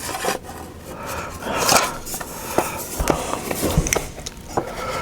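Scattered light clicks and taps with a stretch of scraping and rubbing about one and a half seconds in, as the plastic parts of a car touch-screen unit are handled and fitted together.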